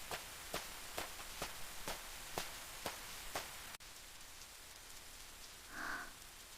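Steady rain with footsteps at a walking pace, about two a second, that stop about halfway through. Near the end there is a short pitched sound.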